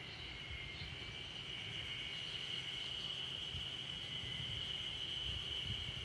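A steady, high-pitched chorus of insects.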